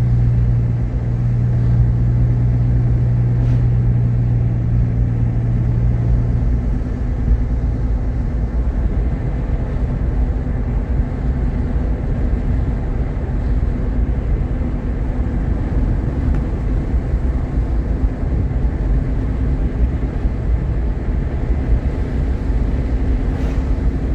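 Steady low rumble of a Jeep Grand Cherokee's 3.7 L V6 and its tyres, heard while driving. A strong low drone stops about six seconds in, and the rumble carries on.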